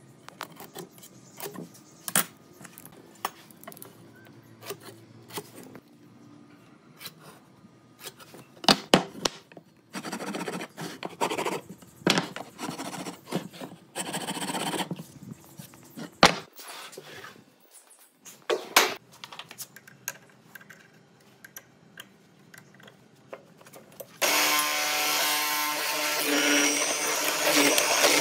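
Hand marking-out on wood: light clicks and taps of a steel square and pen, then scratchy scraping strokes of a wooden marking gauge scribing a board. About 24 s in, a hollow-chisel mortising machine starts and runs loudly and steadily as its chisel cuts into a wooden block.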